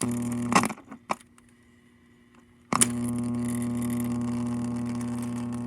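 Steady electrical buzz from a vintage alarm clock radio's speaker turned up to full volume, cutting out with a click a little under a second in and snapping back on with a click near the middle.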